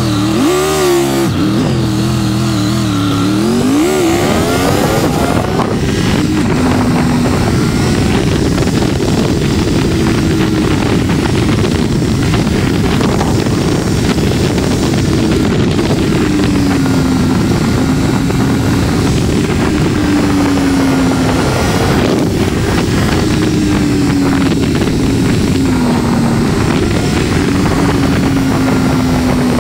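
Triumph Tiger 1200 Rally Pro's three-cylinder engine running on the move, its pitch dipping and rising in the first few seconds as the bike speeds up. Then it settles into cruising under a heavy, steady rush of wind over the microphone.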